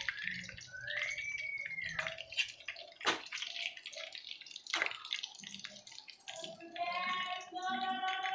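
Light clinks and knocks of utensils against a cooking pan. A steady pitched tone with overtones starts about six seconds in.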